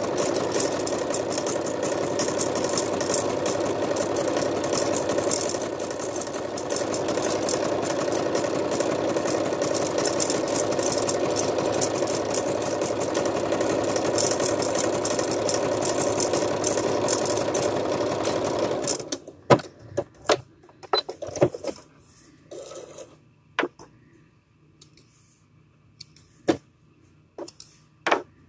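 Sewing machine running steadily as it stitches fleece, briefly a little quieter around six seconds in; it stops suddenly about two-thirds of the way through. After that come scattered short clicks and knocks.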